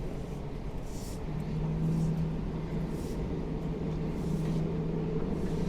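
Diesel engine of a demolition excavator running steadily, its hum growing louder about a second in, with wind buffeting the microphone.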